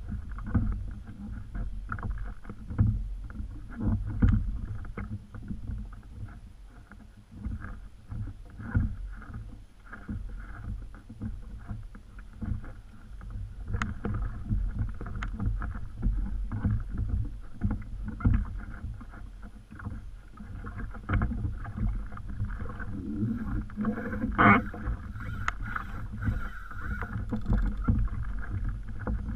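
Small waves lapping and knocking irregularly against a plastic kayak hull and its outrigger float, over a low uneven rumble; one louder knock about 24 seconds in.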